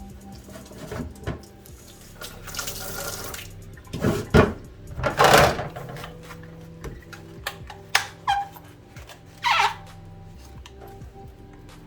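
Tap water running briefly and splashing at a sink as humidifier parts are rinsed, with a few sharp knocks of the plastic parts being handled.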